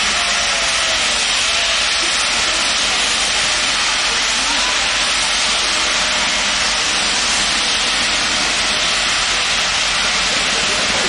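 Union Pacific Big Boy 4014 steam locomotive venting steam in a loud, steady hiss.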